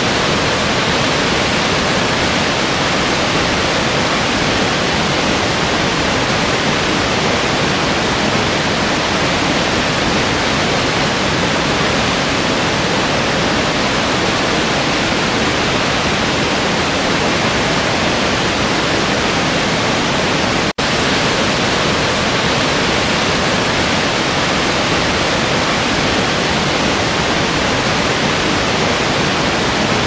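Steady rushing of a waterfall and valley stream: a continuous even roar of falling water with no other sounds. It breaks off for a split second about two-thirds of the way through.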